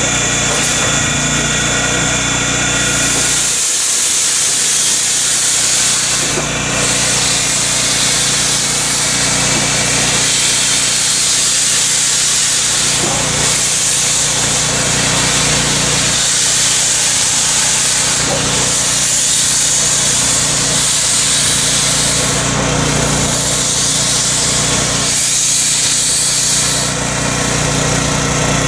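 Steam locomotive venting steam: a loud, continuous hiss of escaping steam that sets in about three seconds in and holds steady, over a steady low mechanical hum.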